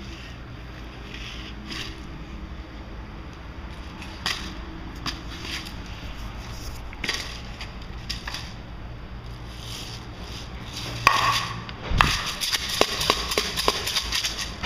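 A green plastic Sprite bottle handled and crinkled by a baby: scattered clicks and knocks, then a quick run of crackling taps near the end.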